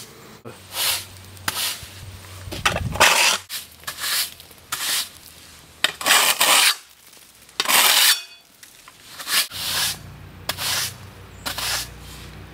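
Stiff-bristle push broom sweeping a concrete slab: a dozen or so short, scratchy strokes of the bristles across the rough surface, about one a second with brief pauses between.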